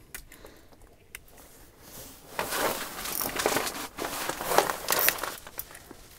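Loud rustling and crinkling of clothing rubbing on a body-worn microphone as the wearer shifts and moves, lasting about three seconds from a couple of seconds in, with a few faint clicks before it.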